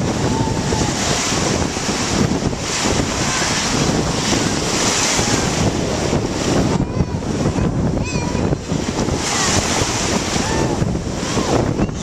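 Small surf washing in and out over a sandy shore, rising and falling every second or two, with wind blowing on the microphone.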